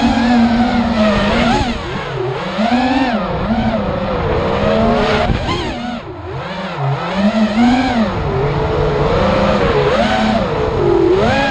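Racing miniquad's brushless motors whining, the pitch swooping up and down over and over as the throttle is worked through the turns.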